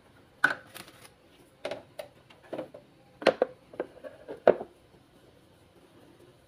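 A string of sharp knocks and slaps as a flour-dusted cutting board is shifted and a lump of pempek fish dough is set down and handled on it, over about four seconds.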